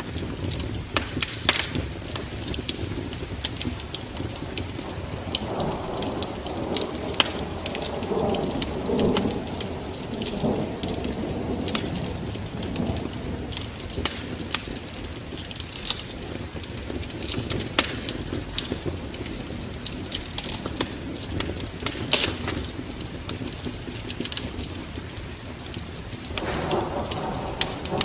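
Wood fire crackling in a fireplace, with frequent sharp pops and snaps over a steady hiss. A deeper rumble swells for several seconds about a quarter of the way in and comes back near the end.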